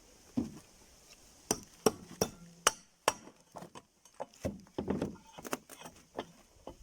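Irregular sharp metal knocks and clinks, about a dozen, from hand work on a refrigerator compressor's steel housing and parts.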